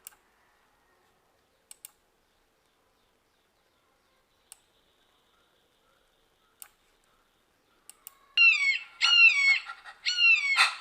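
A few faint, sharp clicks over near silence, then about eight seconds in an eagle-call sound-effect recording starts playing: a quick series of loud, high calls, each sliding downward.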